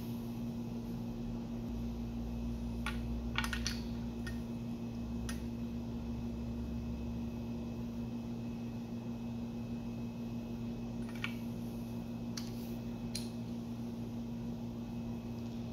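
Scattered sharp metallic clicks from a wrench being worked on bolts of an aluminium BMW N20 engine block, a cluster about three seconds in and a few more near the end, over a steady low hum.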